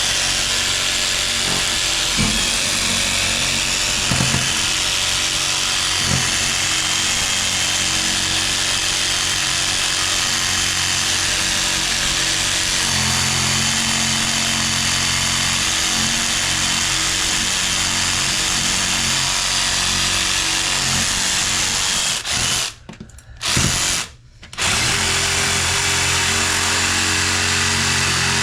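Power saw running steadily as it cuts through a rusted-on faucet mounting nut, its motor note dropping about halfway through. It stops twice briefly near the end, then runs again.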